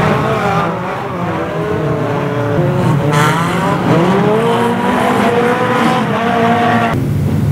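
Several banger racing cars' engines revving and accelerating at once, their pitches rising and falling over each other. The sound changes abruptly near the end.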